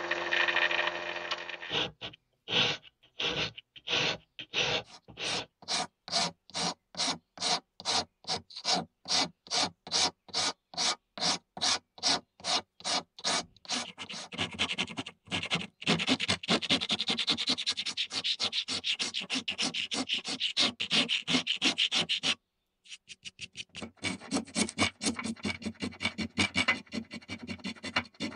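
Disc sander running briefly against a wooden bayonet grip scale, then a hand rasp shaping the wooden scale in regular scraping strokes, about three a second at first and quicker and denser from about halfway, with a short pause near the end.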